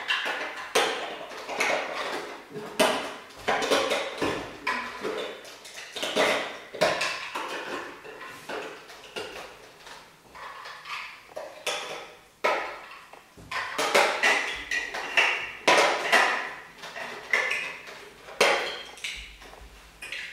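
Plastic Lego bricks clattering and clicking over and over as hands rummage through a pile of them and handle pieces.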